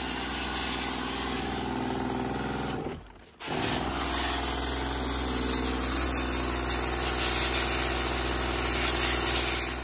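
Pressure washer running and spraying water to rinse coil cleaner out of an air handler's blower: a steady motor hum under a hiss of spray. It drops out briefly about three seconds in, then starts again.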